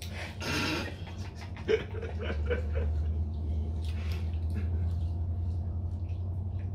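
Mealtime table sounds with a soft chuckle: a breathy burst near the start, a sharp click just under two seconds in, then brief low giggling and small eating clicks over a steady low hum.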